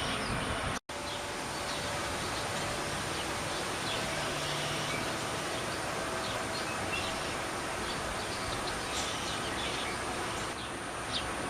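Steady outdoor background noise with faint, scattered bird chirps. The sound cuts out completely for a moment about a second in.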